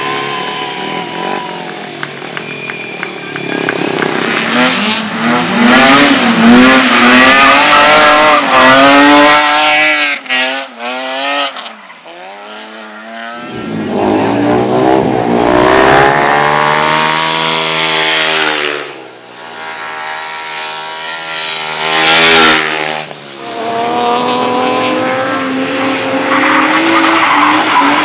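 Racing vehicles' engines revving hard on a cinder track, pitch climbing under acceleration and dropping off several times as they pass, with some tyre noise.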